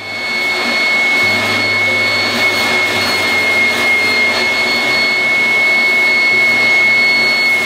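Vacuum cleaner running steadily, a rush of air with a high whine, its nozzle worked over a vinyl car bench seat.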